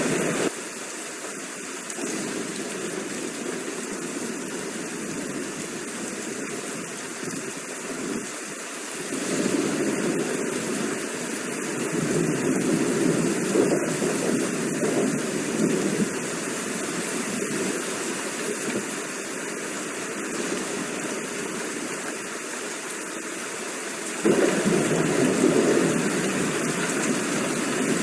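Steady rainfall, growing louder and fuller about nine seconds in and again suddenly near the end.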